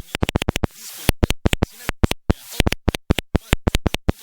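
Morse code on a Pixie2 CW transceiver: a fast run of short and long keyed tone pulses that switch on and off sharply, with gaps of hiss between.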